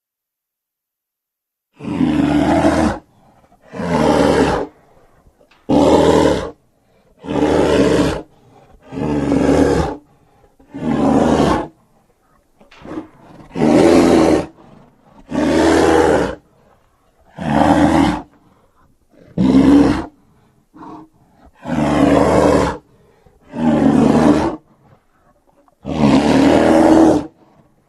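Custom kaiju roar sound effects for Gogola, a reptilian monster, built from edited dinosaur and monster roars. A dozen or so short roars play one after another, about one every two seconds, with silence between them. Each roar lasts about a second and starts and cuts off suddenly.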